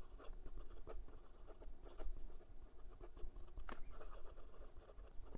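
Broad-nib fountain pen, a Leonardo Momento Zero Grande, writing quickly on notebook paper: soft, irregular scratching of pen strokes with a few sharper ticks.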